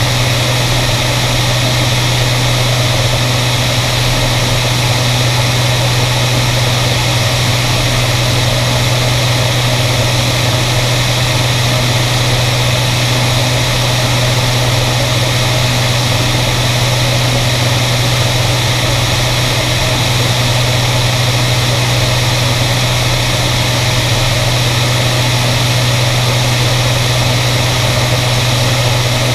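Beriev Be-103 amphibian in steady cruise: the unchanging drone of its twin piston engines and pusher propellers, a strong low hum, mixed with a steady rush of airflow over the airframe.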